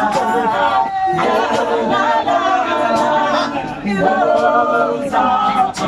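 A group of voices singing together a cappella, with no instruments.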